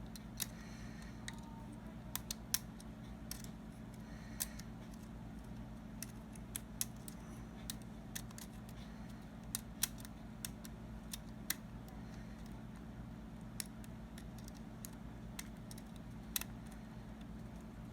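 Lock pick and tension wrench working inside the keyway of a Jedo challenge lock, making scattered, irregular small metallic clicks as the pins are lifted and set, over a steady low hum.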